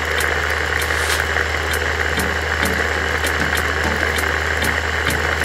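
Electric blender motor running steadily at speed, blending the sauce ingredients in its jar.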